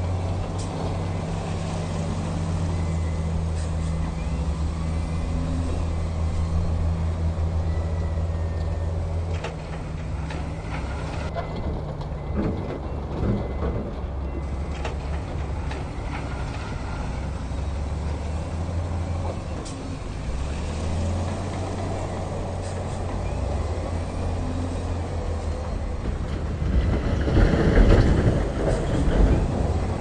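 Heavy diesel dump truck engines running with a steady low drone. A few knocks come around the middle, and a louder rush of noise builds near the end.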